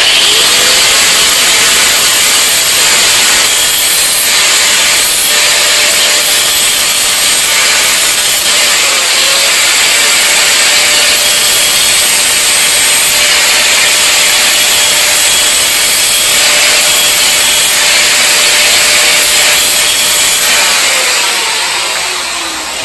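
Small electric angle grinder running steadily while a kitchen knife blade is sharpened against its disc, a loud continuous grinding hiss. The motor winds down near the end.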